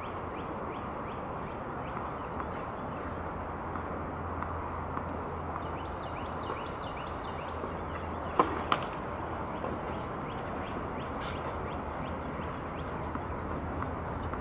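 A tennis serve: a sharp pop of racket strings on the ball about eight seconds in, followed a third of a second later by a second sharp knock of the ball. Underneath is a steady outdoor background with faint bird chirps.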